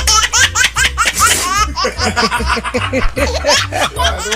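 A person laughing in quick, high-pitched bursts over background music with a steady bass line.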